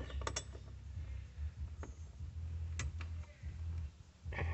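A handful of light, sharp clicks as a metal TV mount bracket and its screws are handled and fitted against the plastic back of a TV, a pair near the start and single ones later, over a steady low rumble.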